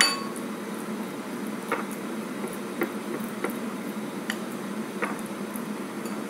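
A sharp clink of a hard object against ceramic dishware at the very start, ringing briefly, then several faint light taps about a second apart over a steady background hiss.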